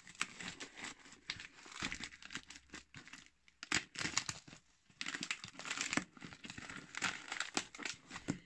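Clear plastic wrapping film crinkling and crackling as hands pull at it on a wrapped cardboard parcel, in irregular bursts with brief pauses.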